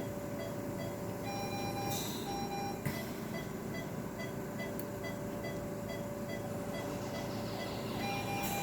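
Electronic medical equipment in a veterinary surgery beeping in short pairs of tones over a steady hum. The beeps stop for about five seconds in the middle and return near the end, with a couple of faint clicks about two and three seconds in.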